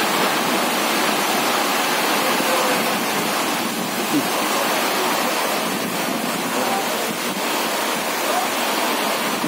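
Heavy rain pouring down in a windstorm: a steady, loud rushing hiss.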